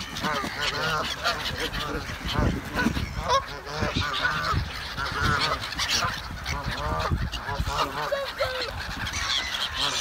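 Canada geese honking, many short overlapping calls one after another.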